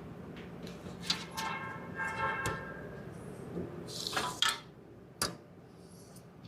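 Hand tools and metal parts being handled: scattered clicks and knocks, a short metallic ringing about a second in, a scraping rustle about four seconds in, and one sharp click soon after.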